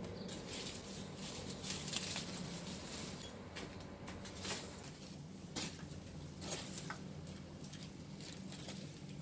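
Irregular rustling and crackling of weeds and debris: sandal footsteps through leaf litter, then a creeper being pulled off a wall by hand.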